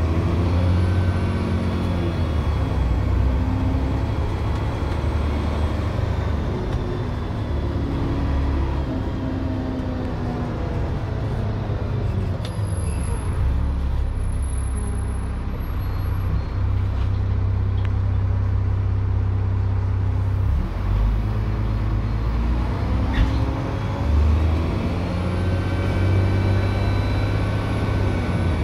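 Bus diesel engine pulling and changing pitch through the gears, with a thin, high turbocharger whistle that rises and falls, most clearly in the first few seconds and near the end.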